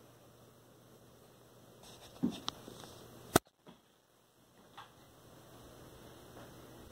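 Faint room hiss with a few short taps and clicks, the loudest a single sharp click about three and a half seconds in.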